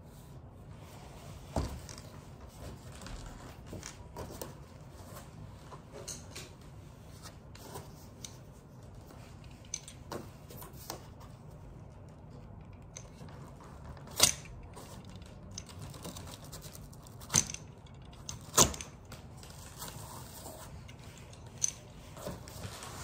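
A cardboard parcel being handled and cut open: scattered light clicks and taps with a few sharper knocks, two of them close together past the middle, over a low steady hum.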